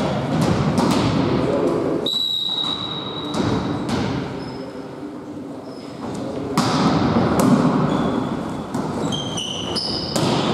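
Indoor volleyball play echoing in a gym hall: a referee's whistle sounds for almost two seconds, then the ball is served and struck in a rally, with sharp hits, short high squeaks near the end as players jump at the net, and players' voices in the background.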